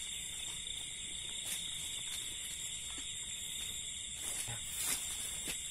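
Night insect chorus: a steady, high-pitched trilling of crickets, with a few faint clicks.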